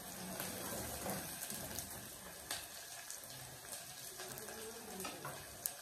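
Chopped onions frying in hot oil in an aluminium pot: a steady sizzle, with a few faint clicks.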